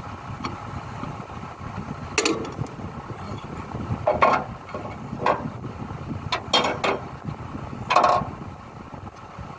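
Sharp metallic clinks and knocks, about six spread through, the loudest near the end, from spanner work on an excavator's hydraulic hose fittings. A steady low engine rumble runs underneath.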